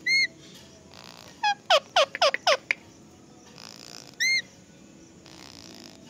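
Rose-ringed parakeet calling while being stroked: a short call at the start, a quick run of about five sharp screeches near the middle, and another short call a little after four seconds in.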